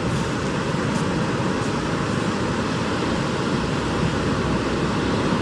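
Pacific Ocean surf washing against a rocky shore, a steady continuous wash of breaking waves.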